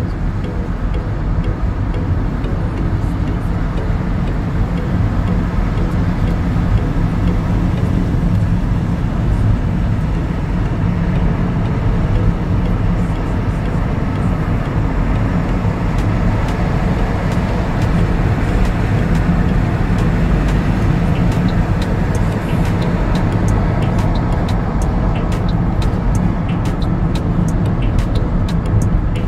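Steady rumble of a car driving, its engine and tyre noise heard from inside the cabin, heaviest in the low end. Faint small ticks come through over the last several seconds.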